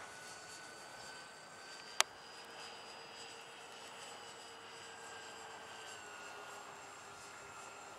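RC model B-26 bomber flying past, its motors making a steady high whine that drops slightly in pitch about six seconds in. A single sharp click about two seconds in.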